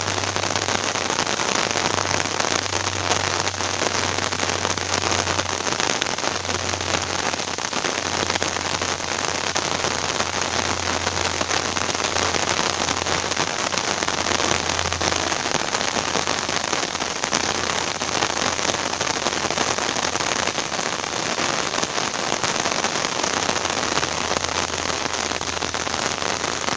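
Heavy rain falling on open water, a steady dense hiss of drops striking the reservoir's surface.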